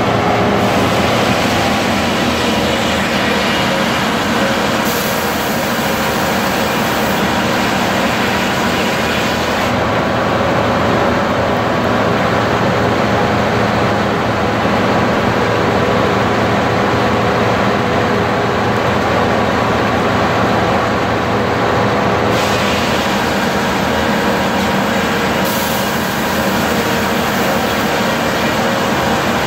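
Sawmill machinery running: the log carriage feeds a log along its track into the head saw, a loud continuous mechanical din with steady hum lines. The higher hiss drops away for a stretch in the middle and comes back near the end.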